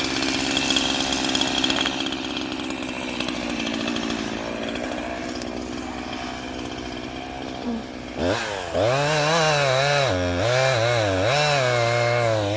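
Two-stroke chainsaw cutting firewood, running steadily under load at first. About eight seconds in it gets louder, and its engine pitch rises and dips repeatedly as it works through the wood.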